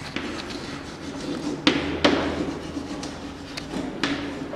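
Chalk writing on a chalkboard: scratchy strokes broken by a few sharp taps of the chalk against the board, the loudest two close together about two seconds in.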